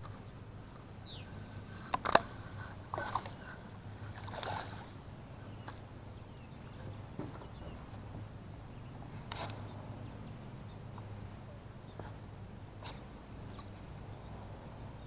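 A few sharp clicks and knocks from handling a spincast fishing reel and rod, the loudest about two seconds in, over a low steady hum.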